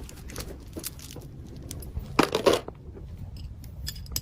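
Small items and plastic packaging being handled while an order is packed: scattered light clicks and rustling, with a louder crinkle about two seconds in.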